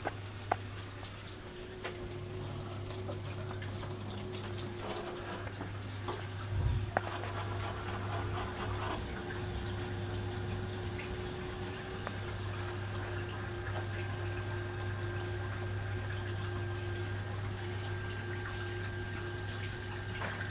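Hot water running from a tap as an even rush over a steady low hum, with a dull knock about six and a half seconds in.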